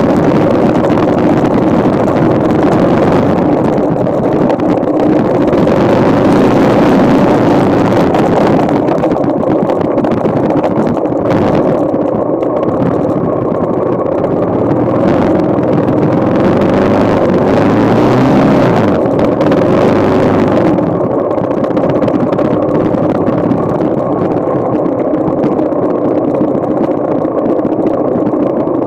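Yamaha XT motorcycle engine running steadily at low revs as the bike rolls slowly through snow. A rushing hiss over the engine, strong through the first twenty seconds or so, thins out near the end.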